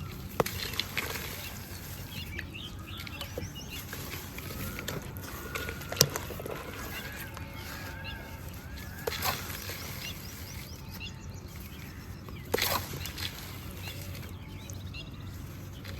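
Water trickling over small pebbles as a steady wash, with birds chirping in short repeated arched notes and a few sharp clicks, the loudest about six seconds in.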